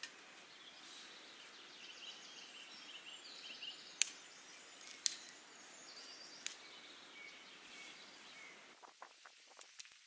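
Birds chirping over a steady outdoor hiss, with three sharp cracks about a second apart as small sticks of kindling are worked with a knife; near the end, a few light knocks and rustles of footsteps on grass.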